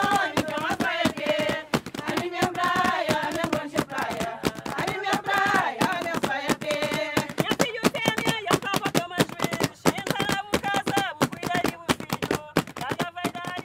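Women singing together in batuku style over quick, steady hand slaps on a cloth pad held in the lap.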